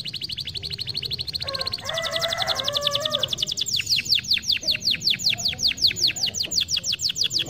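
Domestic canary singing a rolling trill. It starts as a very fast, even run of short repeated notes, then about two seconds in switches to a louder trill of high notes that each sweep downward, about eight a second.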